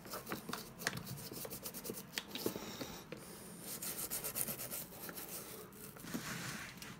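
Toothbrush scrubbing the leather and stitching of a briefcase: a run of short scratchy strokes, quickest around the middle.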